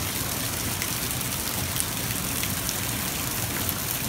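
Heavy rain falling steadily, splashing onto the water of a shallow pool.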